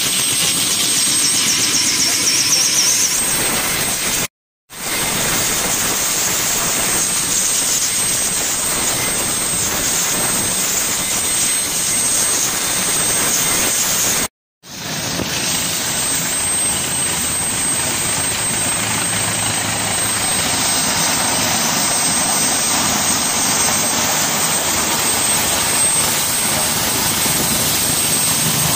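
Helicopters running at close range: a loud, steady rush of turbine and rotor noise. The sound drops out abruptly twice, about four seconds in and again about fourteen seconds in, and resumes right after each time.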